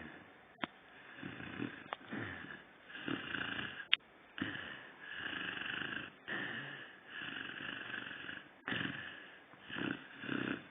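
Lurcher snoring in deep sleep: a run of uneven snores with short gaps, some breaths drawn out for a second or two. A few sharp clicks cut across the snores, the loudest about four seconds in.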